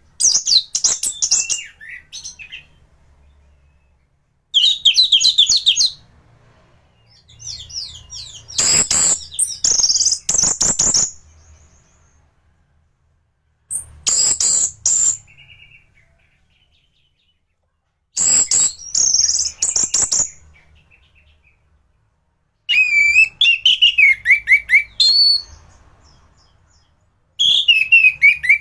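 A thrush (burung anis), a caged bird in top singing form, singing loudly in bursts. It gives about seven fast, varied phrases of high trills, whistles and down-slurred notes, each a second or three long, with short pauses between them.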